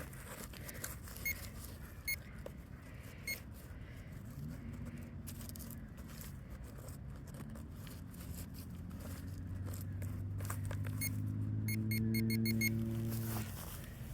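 Metal detector giving a quick run of short beeps over a buried target, with a few single clicks earlier. A low steady hum swells near the end and stops abruptly.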